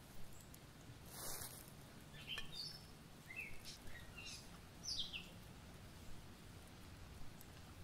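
Faint birdsong: a series of short, quick chirps from small songbirds in a wood, clustered in the middle of the stretch, with a soft rustle about a second in.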